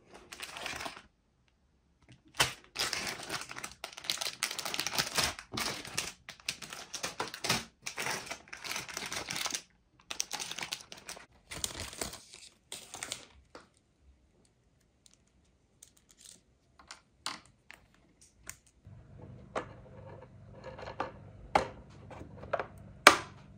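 Clear plastic parts bags crinkling and tearing as they are handled and opened, in dense bursts for the first dozen seconds, then scattered light clicks of plastic parts. Near the end a few sharper clicks as a roof rack is pressed onto the body of a 1/16 RC Toyota Land Cruiser 80, over a faint low hum.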